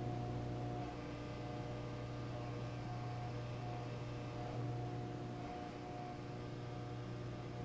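Steady low electrical hum of a Juki industrial sewing machine's motor running idle, with no stitching.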